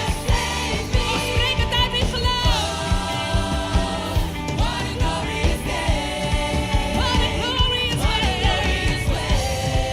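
Worship song: voices singing a melody over a full band with a steady beat.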